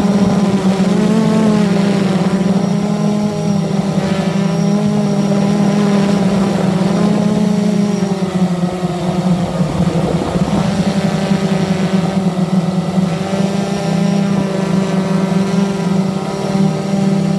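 Blade 350 QX quadcopter's four brushless motors and propellers buzzing in flight, a steady low hum whose pitch wavers up and down as the throttle changes.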